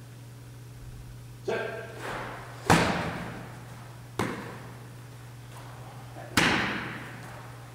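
A football being handled in a long-snapping drill: four sharp thuds and slams over about five seconds, the second and last the loudest, each echoing around a large hall. The first carries a brief rattling ring.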